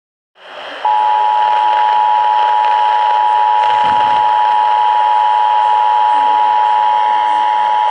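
Emergency Alert System attention signal, the two tones of 853 and 960 Hz sounding together as one steady, harsh tone, received on AM radio over a layer of static hiss. The hiss fades in first and the tone starts just under a second in. The tone announces that an emergency alert, here a flash flood warning, is about to be read.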